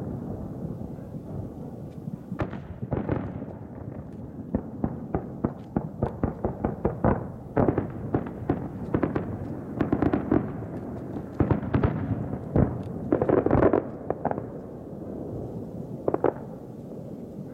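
Aerial fireworks shells bursting in quick runs of bangs and crackles, densest through the middle and thinning out near the end.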